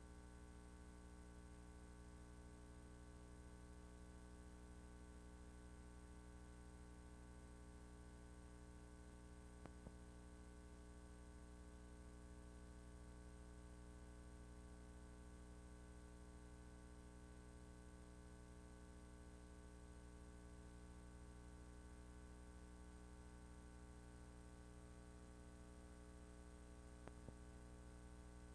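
Near silence: a faint steady electrical hum with many overtones, broken only by two faint clicks, one about ten seconds in and one near the end.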